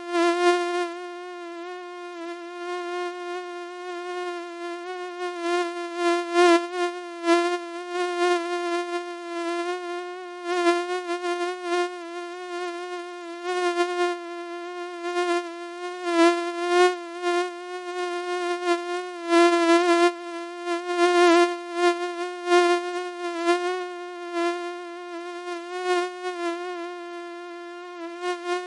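Mosquito whining in flight: a steady, thin high buzz that wavers slightly in pitch and keeps swelling and fading in loudness, as if the insect is circling close to the ear.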